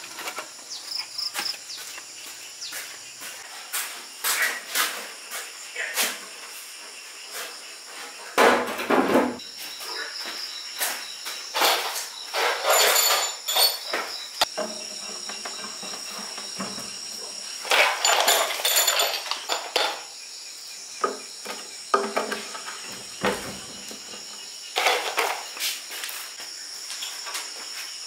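Insects trilling steadily in the background while someone works by hand: scattered knocks and taps, with several longer scratchy, rasping stretches.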